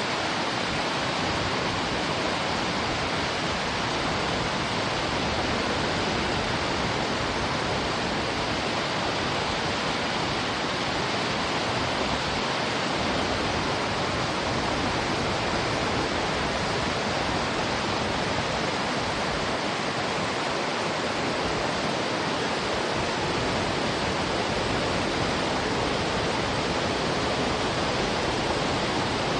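Mountain river rushing steadily over rocks, a continuous even rush of water with no breaks.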